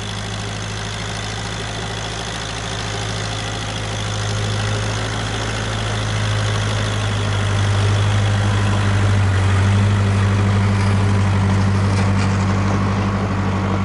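Case 580K backhoe's four-cylinder diesel engine running steadily, growing louder about halfway through.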